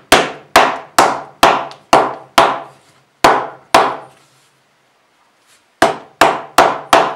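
Wooden carver's mallet tapping a glued walnut inlay down into its white oak recess: a run of about eight sharp wooden taps, a pause of about two seconds, then four more near the end.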